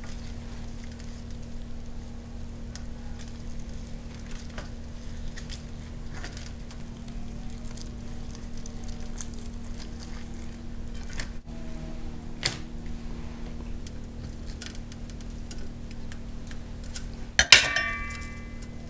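Wet handling and scattered small clicks as the skin is peeled off a boiled beef tongue on a steel tray, over a steady low hum. About 17.5 seconds in, a knife strikes the steel tray with a bright metallic ring, the loudest sound.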